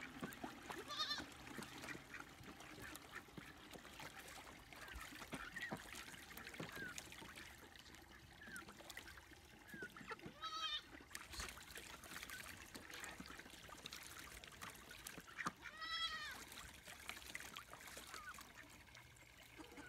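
Ducks splashing and dabbling in a small plastic pool of fresh water, with a few short animal calls, the clearest about halfway and again near the end.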